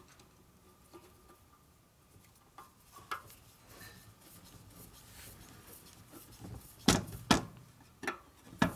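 Screwdriver driving the sleeve-retainer screws into a 1942 Harley-Davidson WLA star hub: scattered small metal clicks and taps, then four sharper clicks in the last two seconds.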